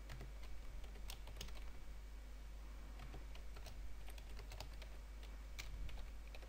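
Faint typing on a computer keyboard: irregular, separate keystrokes.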